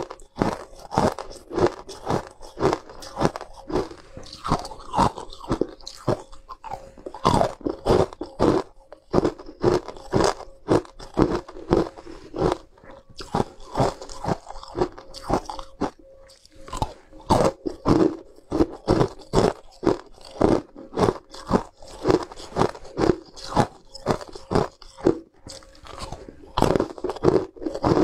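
Molded ice cubes bitten and chewed: a steady run of sharp, brittle crunches, about two to three a second.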